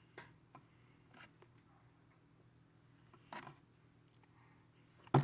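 A few faint, scattered clicks and taps, with one sharper, louder click near the end, over a faint low steady hum.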